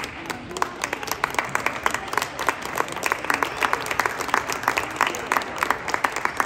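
Spectators applauding: many overlapping hand claps, starting abruptly and keeping up steadily.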